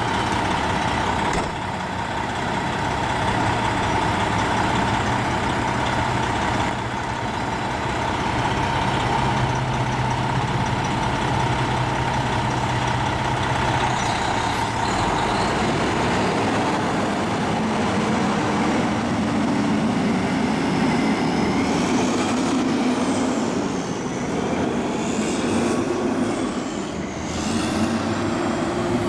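Semi truck's diesel engine idling steadily, then pulling away from about halfway with a flatbed trailer loaded with pipe, the engine note building as it gets rolling. Thin high squeals come in near the end.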